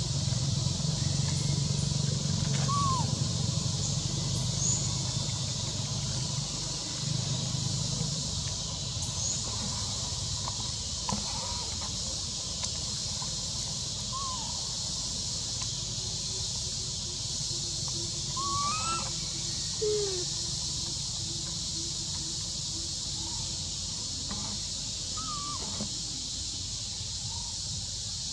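Outdoor ambience: a steady high-pitched hiss with a few short, arched chirping calls scattered through, and a low rumble for the first eight seconds or so.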